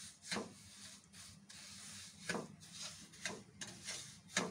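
Wooden spatula stirring and scraping a thick, crumbly halwa mixture around a non-stick wok: a few faint scraping strokes, about a second apart.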